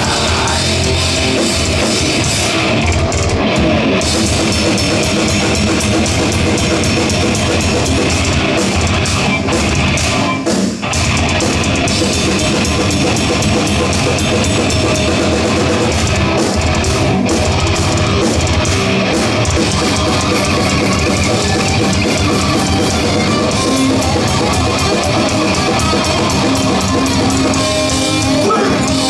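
Heavy metal band playing live: distorted electric guitars over a drum kit, loud and driving, with a brief stop about a third of the way in before the band comes back in.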